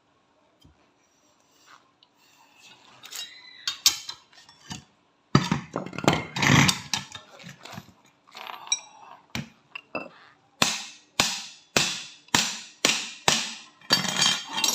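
Metal parts and tools clattering, then an even series of sharp hammer taps on metal, about two a second, as a needle roller bearing is changed in a Honda ADV 160 scooter's CVT pulley.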